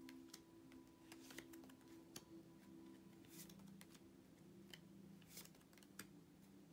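Near silence: faint sustained background music with a few light clicks and taps scattered through it.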